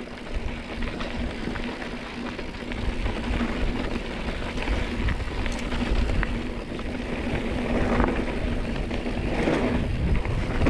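Mountain bike riding over a dirt trail: rumbling tyre noise and quick rattles and ticks from the bike, with wind rushing over the microphone.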